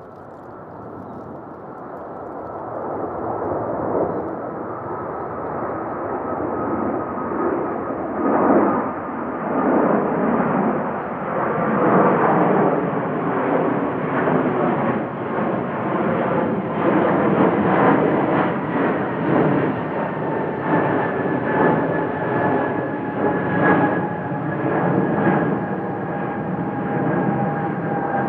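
Boeing 777-300 airliner's twin turbofan engines at climb power just after takeoff, passing close overhead. The jet noise builds over the first few seconds into a loud, rough, fluctuating rush, with a thin fan whine that slides slowly downward in pitch.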